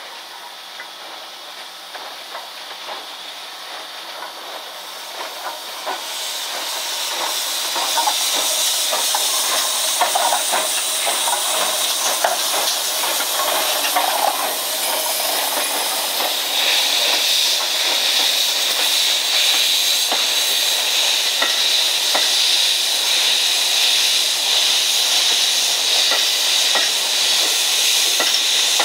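D51 steam locomotive passing close at low speed: a steady hiss of steam that grows louder over the first several seconds as it draws near, with scattered light clicks and knocks from the running gear and wheels on the rails. The hiss strengthens further about halfway through as the coaches roll by.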